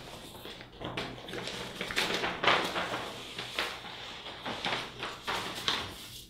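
Sheets of paper rustling and crackling as they are handled and shaken, in irregular bursts, with small cut-paper puzzle pieces spilling onto a table.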